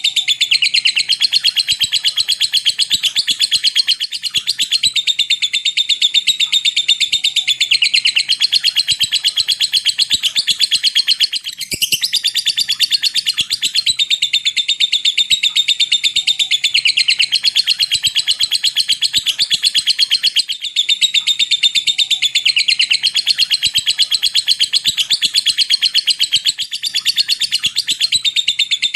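Lovebird singing a long 'ngetik ngekek' chatter: a rapid, typing-like string of high chirps that runs on for several seconds at a time, with short breaks every few seconds.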